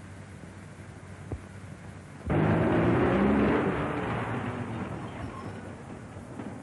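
A 1930s motor car's engine comes in suddenly and loudly about two seconds in, a rough rumble that fades over the next few seconds, over steady film-soundtrack hiss.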